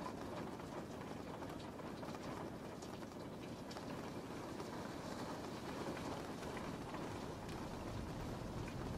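Steady rain, an even hiss with small scattered drop taps.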